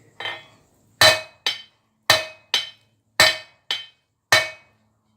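Hand hammer striking hot steel reinforcing bar on an anvil while forging the boss of a pair of tongs: seven sharp ringing blows from about a second in, in loose pairs of a heavy blow and a lighter one, about a pair a second.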